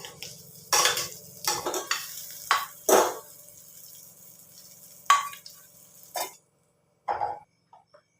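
A cooking utensil scraping and clinking in a pan of frying fish: several separate strokes, fewer near the end, over a faint steady low hum.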